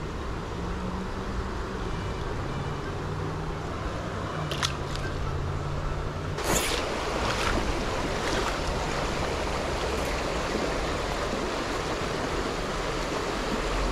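Steady rush of flowing tailwater river water, with a faint low hum under it for the first six seconds and a short noisy burst about six and a half seconds in.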